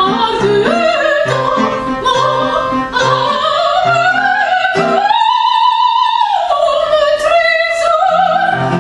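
A woman singing in an operatic soprano style over regularly repeating accompaniment chords, with one long high note held for about a second and a half in the middle.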